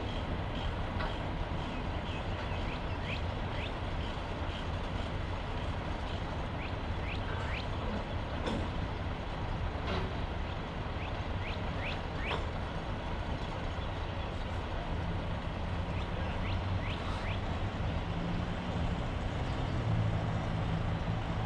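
Heavy diesel engines running steadily, a low rumble with a deeper drone that strengthens from about fifteen seconds in. Short high rising chirps are scattered through it.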